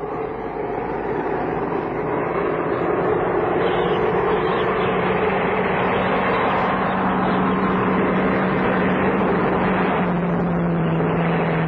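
Radio-drama sound effect of a motor vehicle engine approaching and then running steadily under a wash of road noise. It grows louder over the first couple of seconds, and its pitch drops slightly near the end.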